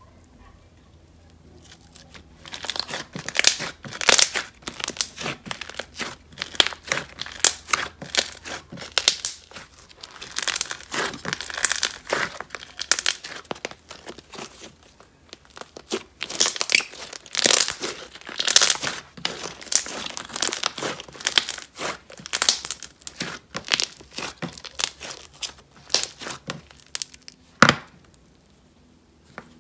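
Thick, glossy semi-floam slime with beads being squished, stretched and folded by hand, giving dense crunching and crackling with sticky pops, starting about two seconds in. Near the end, one sharp knock.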